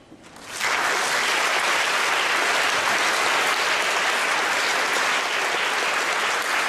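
Audience applauding, breaking out about half a second in and then holding steady and loud.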